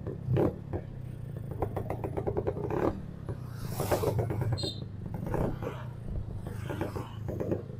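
Modified Vespa scooter's two-stroke engine running under way through a newly fitted aftermarket exhaust with a deep, bassy note.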